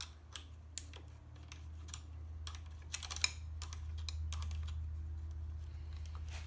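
Scattered light metallic clicks and taps of 3/8 wrenches on a motorcycle's throttle cable adjuster and lock nuts, loudest about three seconds in, over a steady low hum.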